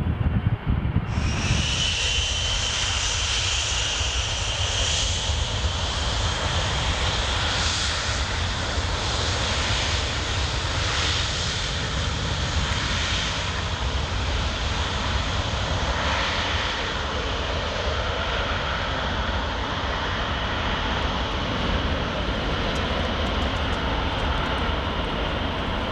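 Jet airliner engines running steadily: a wide rush of engine noise with a high whine that sinks slowly in pitch. The sound cuts in abruptly about a second in.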